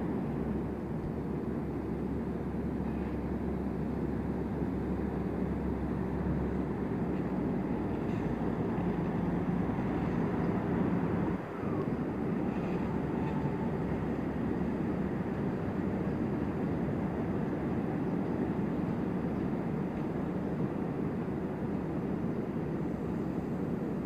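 Diesel railcar running steadily at low speed while shunting, a continuous engine hum with rail noise. The sound briefly drops out about eleven seconds in.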